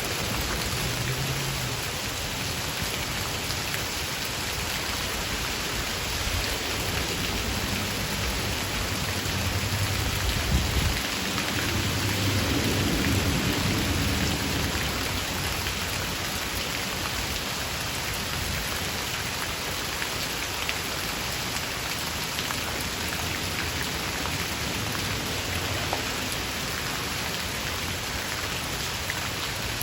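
Steady rain shower falling, with a low rumble of thunder that swells and fades between about ten and fifteen seconds in.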